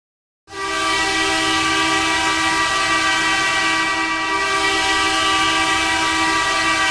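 Arena hockey goal horn sounding, a loud steady multi-tone blast that starts abruptly about half a second in after silence and holds unbroken.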